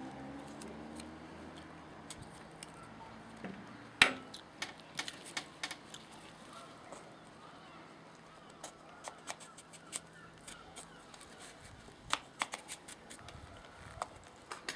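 Leatherman Blast multi-tool blade scoring and prying coconut flesh from inside the shell: irregular scrapes and small clicks, with one sharp knock about four seconds in.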